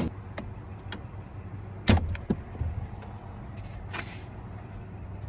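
A few light clicks and one sharp knock about two seconds in, followed by two softer knocks and a brief scrape: loose plastic steering-column covers and parts being handled.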